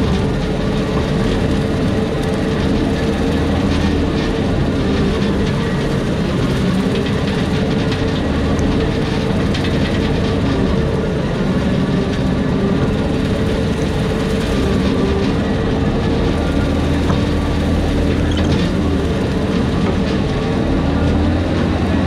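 Skid steer running under load with a Jenkins 60-inch hydraulic brush mower spinning, cutting through tall weeds and brush. The sound is a steady, dense machine noise with a constant hum.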